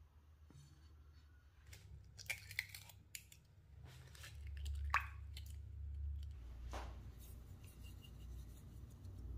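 Food-preparation handling sounds in a kitchen: a scattering of sharp clicks and taps, the loudest about five seconds in, over a low rumble that swells in the middle.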